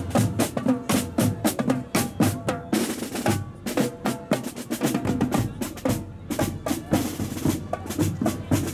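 Marching drums playing: rapid snare drum strikes and rolls over a bass drum, with some pitched instruments or voices beneath.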